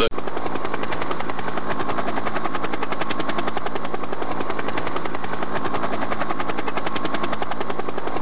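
Helicopter rotor chopping rapidly and evenly, with a steady drone beneath, heard from the helicopter itself; it begins abruptly.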